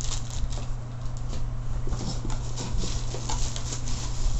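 Hands rummaging inside a cardboard box, scraping and rustling against the cardboard and packing in a run of small scratchy clicks, over a steady low hum.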